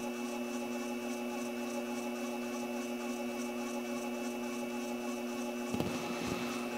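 Sherline mini mill's spindle motor running steadily at slow speed, a smooth hum with a faint high whine, while a wiggler in the chuck is being centred. A few faint knocks come near the end.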